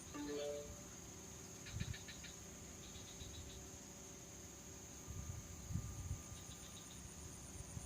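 Swamp insects chirring: a steady high-pitched drone with a fast pulsing trill above it, which drops out early and returns near the end. A short run of falling notes sounds at the start, and a few low thumps come about two and five to six seconds in.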